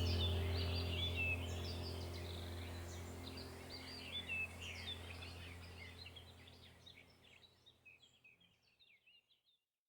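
Birds chirping over a steady low hum, fading out to silence about seven seconds in.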